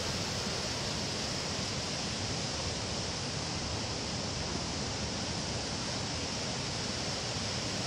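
Floodwater rushing: muddy runoff from heavy rain pouring down a hillside and flowing across a road, a steady rushing noise.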